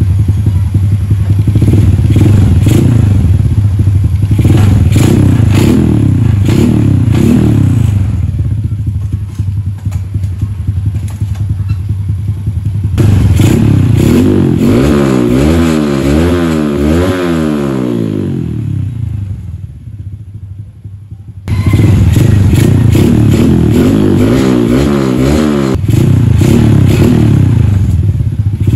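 Honda Wave S 110 single-cylinder four-stroke engine running on a test stand, its throttle blipped again and again after break-in. The revs climb and fall many times in quick succession. About two-thirds of the way in it drops low for a couple of seconds, then comes back in suddenly at full volume.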